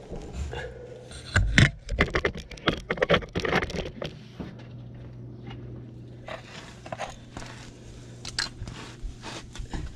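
Camera rubbing and knocking on tarmac as it is shifted and set down, a burst of scraping with a loud knock about one and a half seconds in. After that, scattered light clicks and knocks over a steady low hum.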